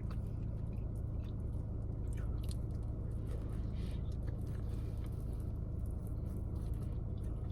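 Close-up chewing of a mouthful of teriyaki chicken sandwich: soft, wet mouth clicks and smacks, with a steady low hum beneath.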